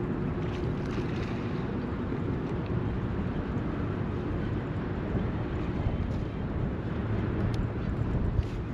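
Steady low rumble of wind and moving river water around a fishing boat, with a faint steady hum in the first seconds and a couple of light ticks near the end.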